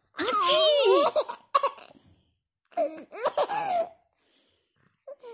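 Baby laughing: a loud, high-pitched bout of laughter in the first second or two, then a shorter bout about three seconds in.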